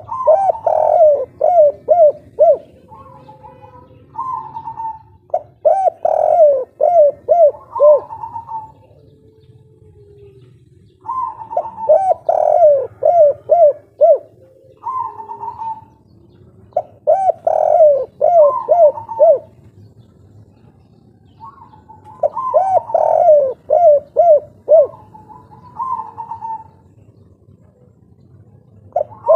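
Spotted dove (derkuku) singing its 'kuk 3' coo song: five phrases, each a quick run of coos, repeated about every five to six seconds with short pauses between.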